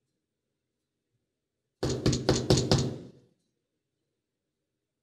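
Knocking on an apartment door: a quick series of about five knocks, starting about two seconds in.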